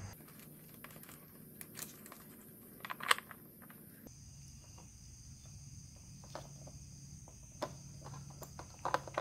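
Faint, scattered small clicks and taps of hands handling the plastic parts of a flush-mount LED turn signal, such as its threaded plastic retaining washer. The sharpest click comes about three seconds in.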